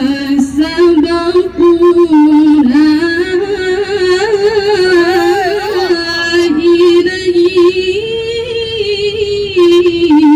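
A woman reciting the Quran in the melodic tilawah style, holding long wavering notes with ornamented runs. Her voice steps up to a higher held note about eight seconds in and drops back near the end.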